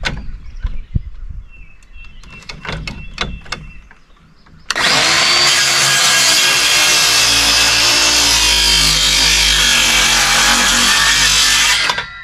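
Cordless circular saw cutting a 45-degree angle through a wooden deck rail board. A few light clicks and knocks come first, then about five seconds in the saw starts and runs loud and steady through the cut for about seven seconds before stopping suddenly.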